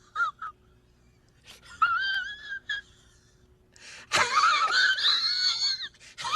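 A high-pitched, voice-like wailing cry whose pitch wavers up and down, heard as a few short bits, one longer cry about two seconds in, and a longer, louder cry from about four to six seconds in.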